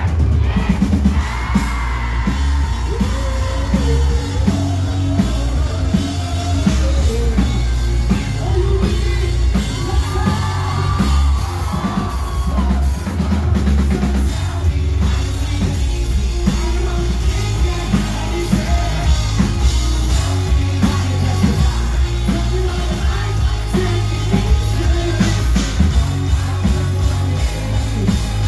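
Live rock band playing loud: a lead singer's vocals over a pounding drum kit and heavy bass, with yells from the crowd.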